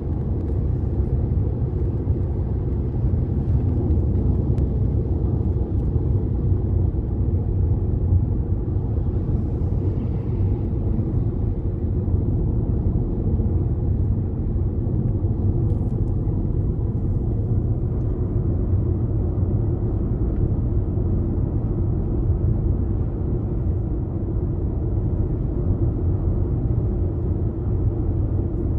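Steady low road rumble inside a moving car's cabin: tyre and engine noise while driving on a motorway.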